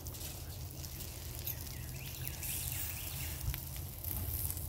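Corn-tortilla tacos frying in oil on a flat-top griddle, a faint hissing sizzle, with a couple of light clicks from a metal spatula pressing them down.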